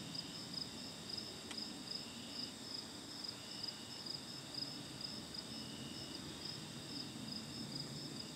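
Crickets and other insects chirping in a steady chorus: a high trill pulsing about two to three times a second over a constant high buzz, with a second, lower trill starting and stopping now and then.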